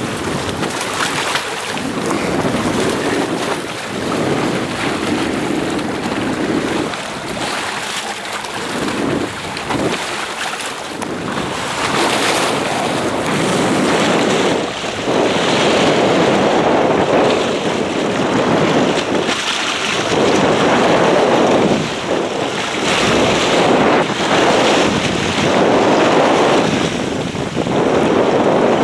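Wind noise on the microphone over waves washing and splashing along the hull of a boat at sea, coming in surges.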